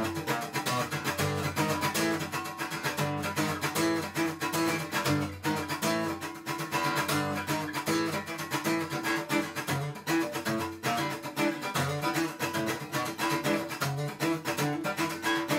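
Acoustic guitar played in a rhythmic cutting style with a thick pick, a steady stream of sharp, percussive strums over chords. The thicker pick gives the strokes more power, a crisper attack and more midrange than the slappy sound of a thin pick.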